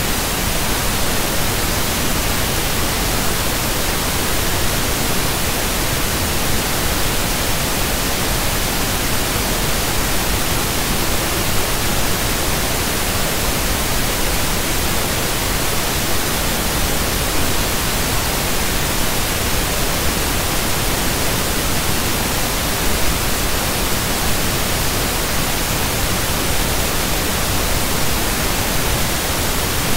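Steady loud hiss of static noise, even from low to high pitches, with no changes or separate events.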